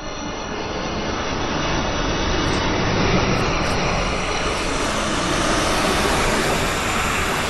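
Designed sci-fi space whoosh: a smooth, slow swell of airy noise that rises in level over the first few seconds and grows brighter as its top end opens up, then holds full like a long flyby.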